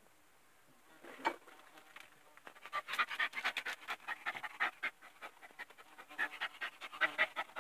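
A dog panting in quick, short breaths, starting about two and a half seconds in.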